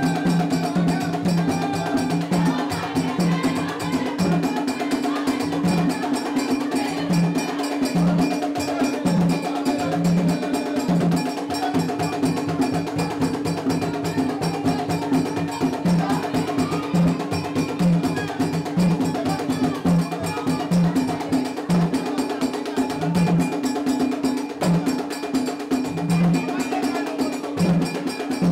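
Vodou ceremonial music: fast, steady percussion of sharp clicks and bell-like metallic strikes over low drum beats, with voices.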